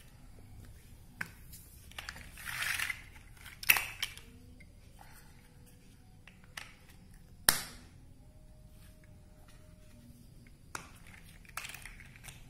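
Large plastic toy building bricks clicking and knocking together as they are pressed on and pulled apart, with a short rustle of bricks being rummaged in a pile about two seconds in. The sharpest click comes a little past halfway.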